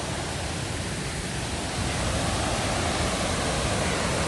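Steady rush of water from the waterfall at Agate Falls, a continuous roar that swells a little about two seconds in.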